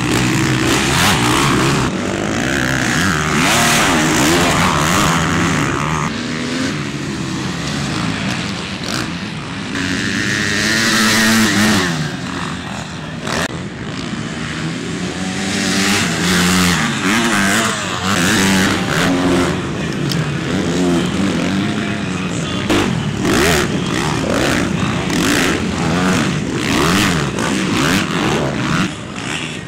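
Motocross bikes racing, their engines revving up and down in pitch as they accelerate and pass, several bikes overlapping.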